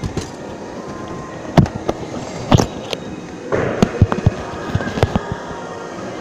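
Trumpf CNC punch press hitting sheet metal: sharp, irregularly spaced punch strokes over a steady machine hum, with a short rushing burst about three and a half seconds in.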